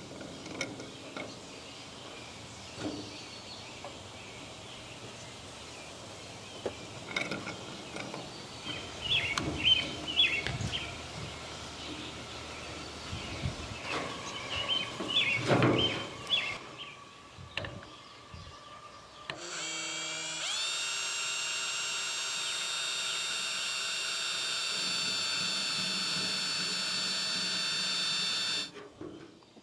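Scattered knocks and handling clatter of work at a bench, with some high chirps, then an electric drill starts about two-thirds of the way in. The drill spins up and runs steadily for about nine seconds, then stops shortly before the end.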